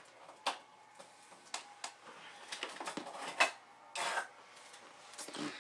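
Scattered light clicks and clatter of small plastic diamond-painting drill containers and trays being handled, sharpest about three and a half seconds in, with a short rattle just after.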